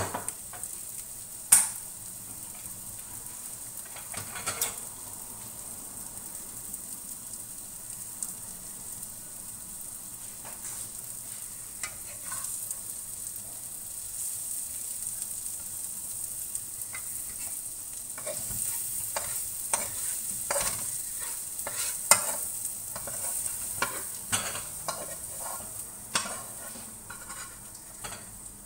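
Bitter gourd and egg frying in a wok: a steady sizzle under the scrape and tap of a spatula stirring against the pan. The stirring gets busier in the second half, with a couple of sharp knocks of the spatula on the wok.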